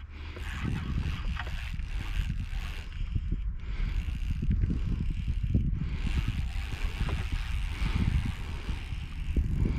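Wind buffeting the microphone in uneven gusts, a low rumble, with faint water lapping.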